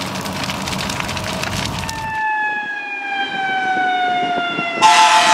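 Crackling fire for the first two seconds. Then a fire engine's siren comes in, falling slowly in pitch as it winds down, and a loud air horn blast cuts in near the end as the siren starts to rise again.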